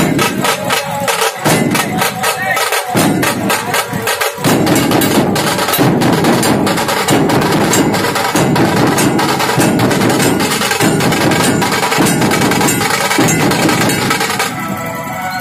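Percussion-led music: fast, dense drum strokes, joined about four seconds in by a heavier low drum pattern that repeats roughly every 1.2 seconds and thins out near the end.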